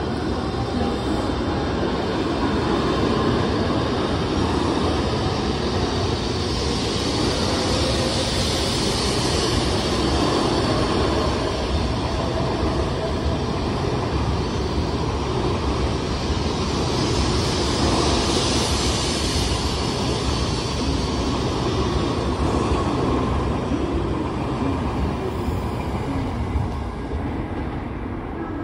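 N700S Shinkansen train passing alongside the platform: a steady rumble of wheels on rail, with faint whining tones over it and the sound swelling and easing as the cars go by.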